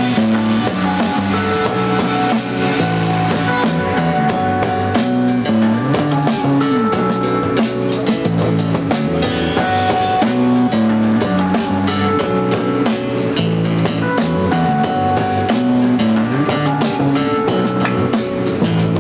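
Acoustic guitar playing an instrumental passage with no singing, strummed in a steady rhythm.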